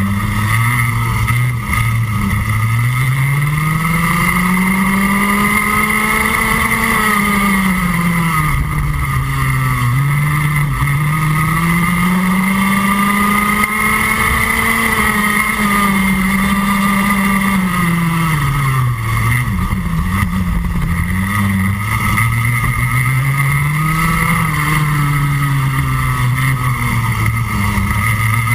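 Rotax Max Junior 125cc single-cylinder two-stroke kart engine at racing speed, heard onboard. Its pitch climbs steadily as the kart accelerates and drops back as the driver lifts for a corner, about four times over.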